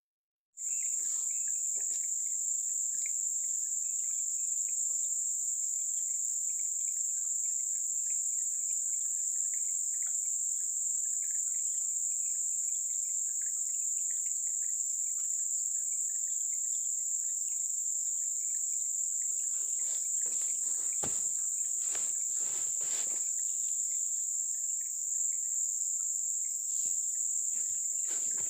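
Dense chorus of crickets and other insects: a steady, shrill high-pitched drone, with scattered faint chirps beneath it. Rustling and knocking noises come in about twenty seconds in and again near the end.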